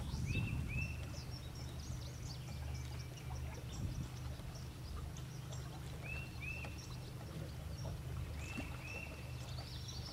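Marsh birds calling: a short two-note whistled call repeated three times, over a scatter of higher chirps, with a steady low rumble underneath.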